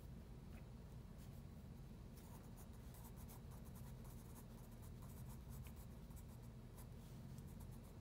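Graphite pencil scratching faintly on drawing paper in quick repeated strokes, shading feathers.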